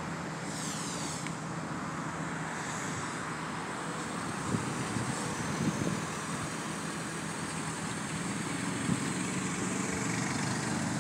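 Steady road traffic and vehicle engine noise with a low hum, with a few soft knocks around the middle.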